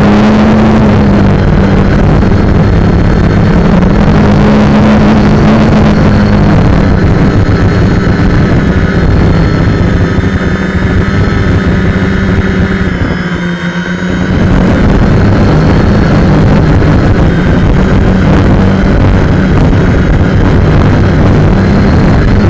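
Quadcopter's electric motors and propellers buzzing steadily, picked up loud by the onboard action camera's microphone along with air rushing past it. About halfway through, the buzz drops in pitch and level for a moment, then picks up again.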